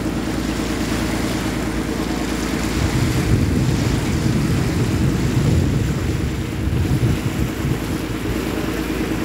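Fishing boat's engine running steadily while underway, with water rushing past the hull. Wind buffets the microphone from about three seconds in until about eight seconds.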